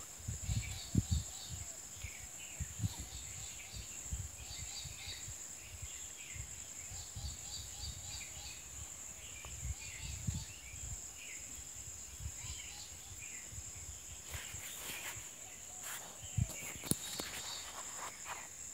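Forest ambience: a steady high-pitched insect drone with repeated short chirping calls of small birds. Low thumps and a brief crackling rustle come about three quarters of the way through.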